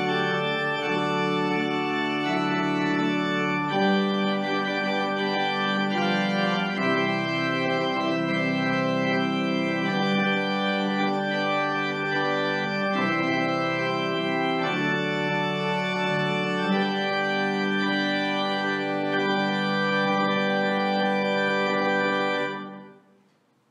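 Church organ playing slow, sustained chords that change every couple of seconds. It fades out quickly near the end.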